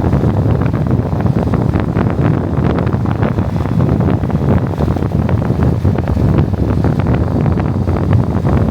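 Strong wind buffeting the microphone: a loud, continuous low noise broken by rapid crackling flutters, described as very loud wind noise.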